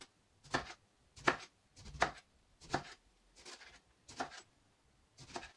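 Chef's knife slicing an aubergine into thin rounds on a wooden cutting board. Seven strokes come about one every three-quarters of a second, each cut ending in a knock of the blade on the board.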